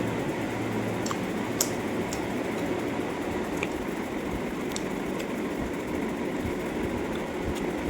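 A steady rumbling background noise, with scattered small clicks and smacks from someone eating chicken.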